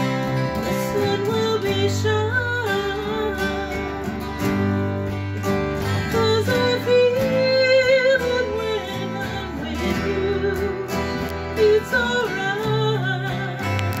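A woman singing a melody, accompanied by several acoustic guitars played together.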